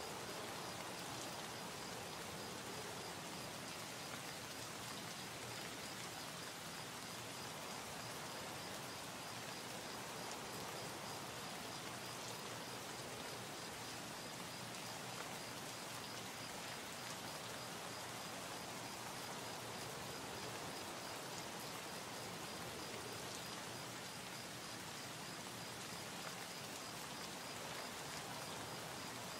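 Steady, even hiss with no distinct events, carrying a faint, high, evenly repeating tone throughout.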